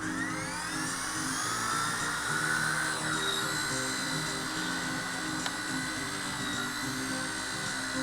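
High-pitched whine of the WLToys V922 micro helicopter's electric motor and spinning rotor, rising in pitch over the first couple of seconds as it spools up, then holding nearly steady with small dips. Background music plays underneath.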